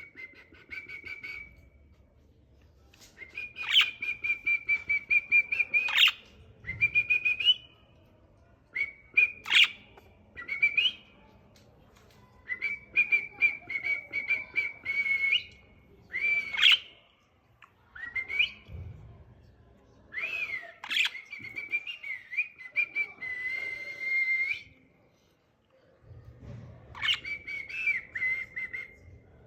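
Small birds chirping and chattering in repeated phrases of one to three seconds with short gaps, some broken by sharp, sudden high notes.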